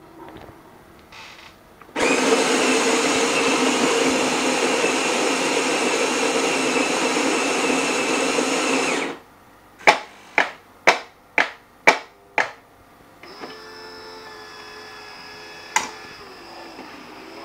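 Saeco Incanto automatic espresso machine making a coffee: the built-in grinder runs loudly and steadily for about seven seconds, then stops. Six short, sharp pulses follow about half a second apart, then a quieter, steady pump hum with a single click partway through.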